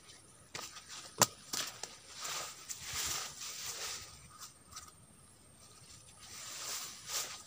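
Close rustling and scraping handling noise in fits and starts, with one sharp click about a second in, over a faint steady insect drone.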